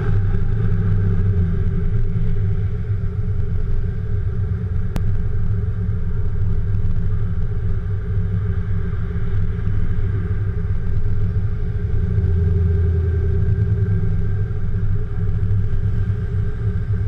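Car engines idling with a steady deep rumble, with a single sharp click about five seconds in.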